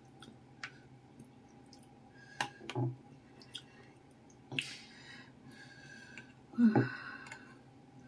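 Metal spoon clinking and scraping in a ceramic bowl of meatball noodle soup: a few separate light clicks, then a louder clatter with a splash of broth about two-thirds of the way in.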